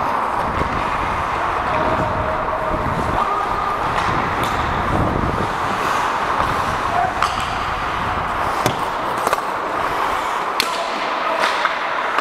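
Ice hockey play heard from a skater on the ice: a steady scrape and rush of skate blades on ice and moving air, with several sharp clacks of sticks and puck.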